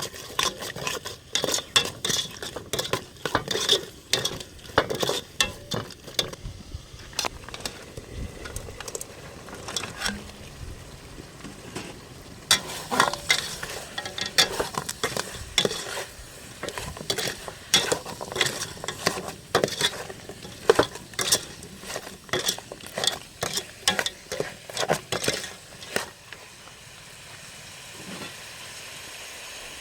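A utensil stirring and scraping in a cooking pan over sizzling food, with many quick clinks and knocks. The knocking stops near the end, leaving a steady hiss.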